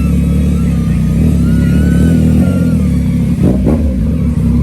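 Motorcycle engine running, a steady low rumble, with a few short sounds from other noises near the end.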